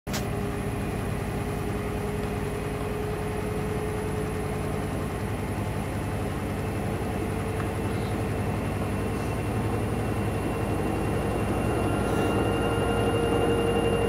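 Hoover front-loading washing machine running, its motor and drum giving a steady whine that rises slightly in pitch and grows louder, with a second, higher whine joining about eleven seconds in. The drum is full of excess foam, a suds lock.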